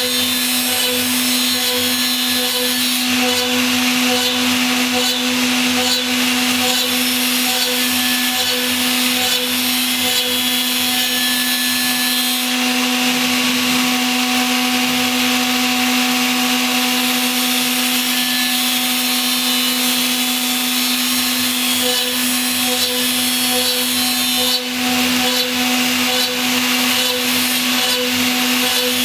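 CNC router spindle running with a steady motor tone while a small end mill cuts an aluminium gear, with the hiss and chatter of the cut. The cutting sound shifts a few times as the tool moves in and out of the work.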